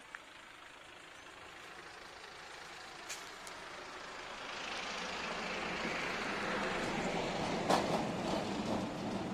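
Steel sliding gate driven by a Garen sliding-gate motor rolling shut along its ground track: a rolling, grinding rumble that grows steadily louder as the gate approaches, with a short click about three seconds in and a sharp clank near the end.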